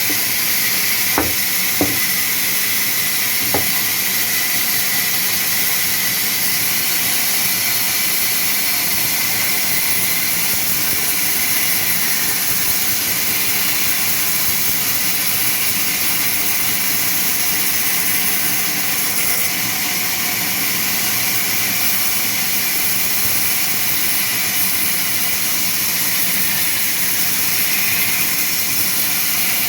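Sawmill saw running steadily, a loud even high hiss, with three short knocks in the first few seconds.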